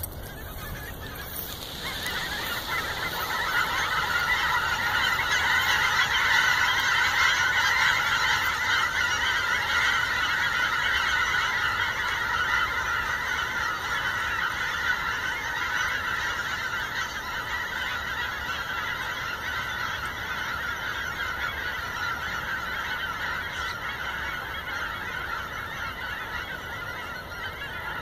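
A large flock of geese honking together in flight, a dense chorus of calls that swells over the first few seconds and keeps on.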